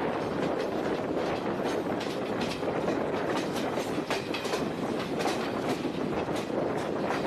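Train cars rolling past, their wheels clacking over rail joints in a continuous stream of clicks over a steady rumble.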